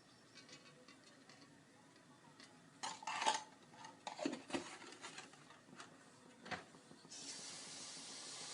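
Metal cooking pan and utensils clinking and knocking a few times, then a steady hiss for the last second and a half.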